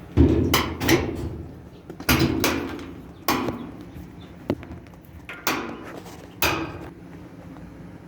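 A series of clunks and knocks from handling and fitting parts of a Roper washing machine's sheet-metal cabinet during reassembly, about one a second, each ringing briefly, with one sharper click near the middle.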